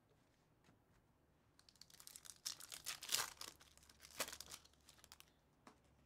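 Foil wrapper of a Bowman Chrome baseball card pack being torn open and crinkled by hand. The crackling starts about a second and a half in, is loudest around the middle with two sharp peaks a second apart, and dies away near the end.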